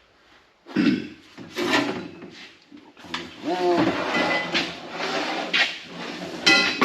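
Steel parts of a welding cart being handled and fitted during assembly: a run of sharp metal knocks and clanks, some of them ringing briefly, with a short rising squeak about three and a half seconds in.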